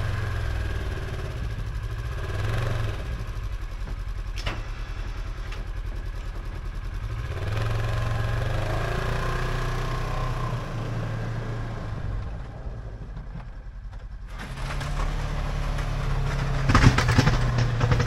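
Engine of a snow-plowing vehicle running, its pitch rising and falling as it works, quieter for a couple of seconds after the midpoint. A sharp knock comes about four seconds in, and several more near the end.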